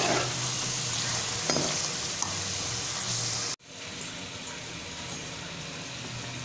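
Cornflour-coated potato chips deep-frying in hot oil, sizzling steadily as they are stirred with a metal slotted spoon, with a few light clicks. Just past halfway the sizzle cuts off sharply and comes back quieter.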